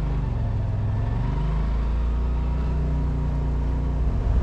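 Race car engine running at low, fairly steady revs, getting louder near the end.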